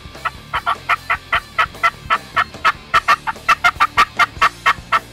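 Turkey calling: a long, even run of about twenty short yelping notes, four or five a second.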